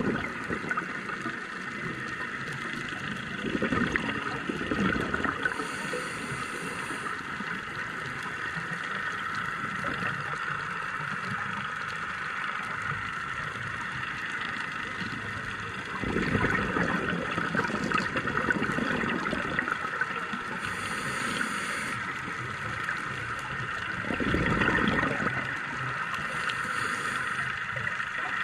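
Underwater sound on a scuba dive: a steady crackling hiss, with bubbly rumbles of a diver's exhaled breath from the regulator, loudest about 4, 16 and 24 seconds in.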